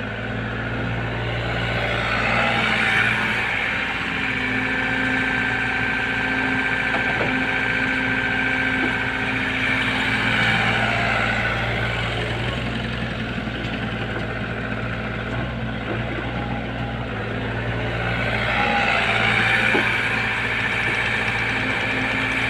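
Lovol FR80E excavator's diesel engine running steadily, with a higher hydraulic whine swelling three times as the boom swings and the bucket digs and dumps clay mud.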